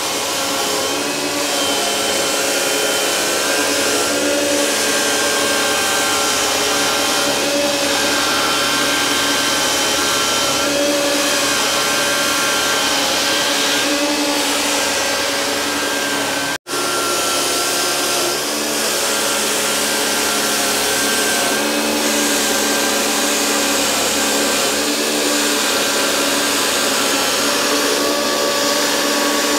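Electric floor-grooving machine cutting small grooves into smooth concrete slatted barn floor with a grinding disc, to roughen it so cows don't slip. It is a steady motor whine and grinding whose pitch wavers slightly under load, with a split-second break a little past halfway.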